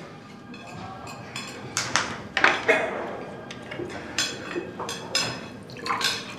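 Scattered light clinks and knocks of dishes and glassware being handled at a café counter.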